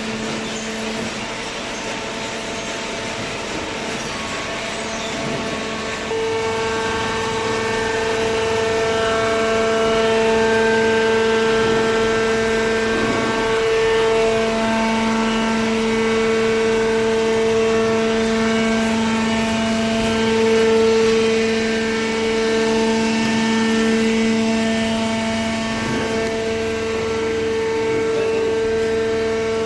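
Cardboard baler's motor running with a steady hum, growing louder with more overtones about six seconds in.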